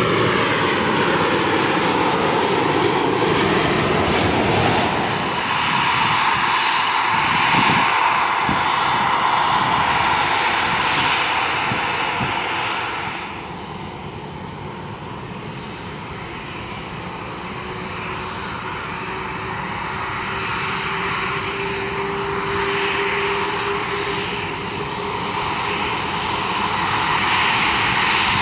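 Fixed-wing aircraft engines running loud. In the first few seconds a whine falls in pitch as the aircraft passes, then a steady roar that eases about halfway through and builds again near the end.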